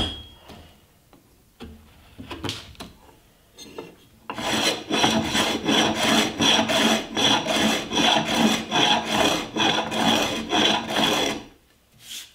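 A small hand plane taking quick, repeated strokes along the edge of an oak board to round it over, about two to three strokes a second. A few scattered strokes come first, and the steady run starts about four seconds in.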